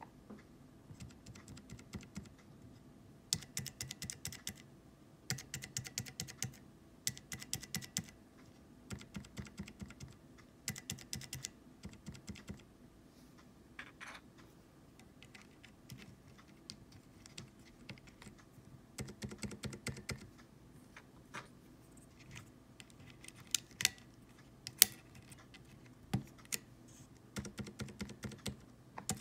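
Cherry MX Silent Red mechanical keyboard switches pressed in quick bursts of clicks, with pauses between bursts and a few single, louder presses near the end.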